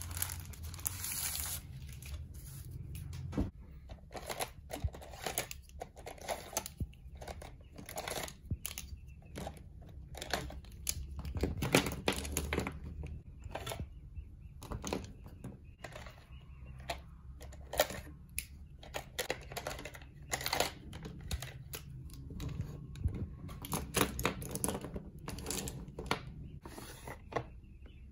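Crinkling of a clear plastic packaging sleeve near the start, then a long run of sharp clicks and taps from pens, pencils and other stationery being picked up, knocked together and put down.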